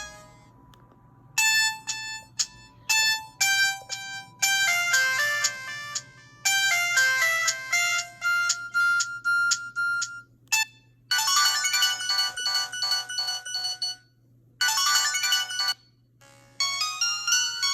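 Samsung GT-E1175T mobile phone ringtones: electronic melodies of short pitched notes. One tune starts about a second in. After a break near the middle, a denser, brighter tune follows with a couple of short pauses.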